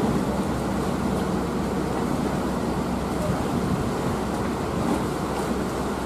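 Ferry's engines running steadily as it comes alongside the pier, a constant low hum under the noise of water and wind.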